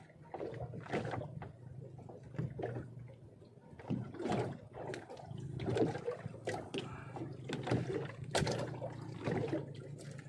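Sea water sloshing and lapping against a small boat's hull in irregular swishes, over a steady low hum.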